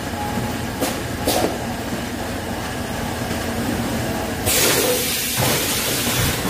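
Rotary cup-sealing packaging machine running with a steady hum and a couple of light clicks. About four and a half seconds in comes a hiss lasting about a second.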